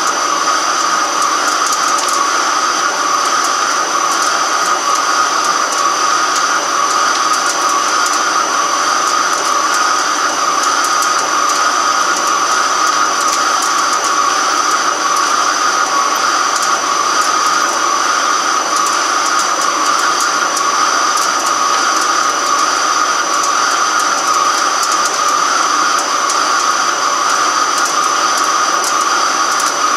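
Microcut BNC-6500 flat-bed lathe turning a large steel workpiece: a steady, loud cutting noise with a constant high-pitched ring and a light crackle of chips.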